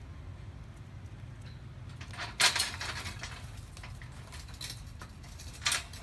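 Monkeys clambering on metal scaffolding: two short clattering knocks, the first and louder about two and a half seconds in and the second near the end, with a few faint clicks over a steady low rumble.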